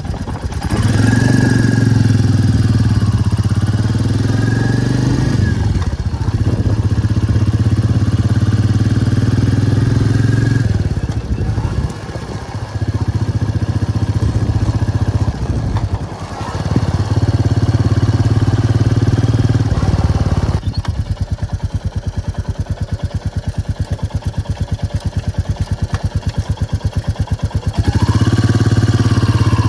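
Royal Enfield Meteor 350's single-cylinder engine pulling the bike along the road. Its note dips briefly a few times, as at gear changes, and eases off to a lower, pulsing run for several seconds before picking up again near the end.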